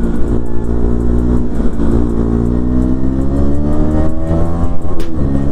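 KTM 250 Duke's single-cylinder engine pulling under way on the road, its gasket freshly replaced. The revs dip twice, then climb steadily in pitch from about two seconds in and fall back at a gear change near the end.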